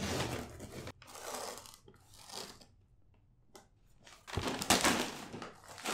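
Gift wrapping paper being torn off a box by hand, in several rips with crinkling between them. The loudest tear comes near the end.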